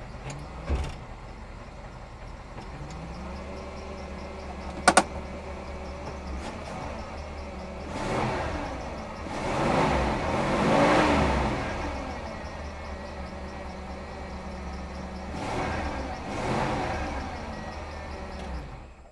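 A 1979 Ford Mustang's 302 V8 with a two-barrel carburettor, heard from inside the cabin, idles and is revved up to about 3,000 rpm and back down twice, about eight and fifteen seconds in. A sharp click sounds about five seconds in.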